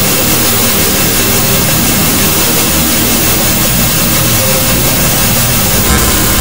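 Hypertone electronic track: a loud, dense wall of harsh noise across all pitches over a low rumble, with a few faint steady tones showing through.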